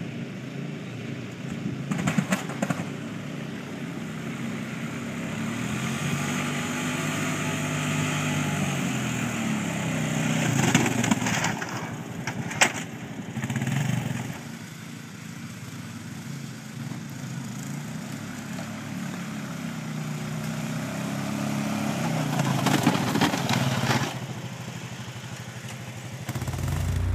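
ATV engine running and rising and falling in pitch as the quad pushes snow with a front-mounted plow blade, with a scraping hiss from the blade and a few sharp knocks.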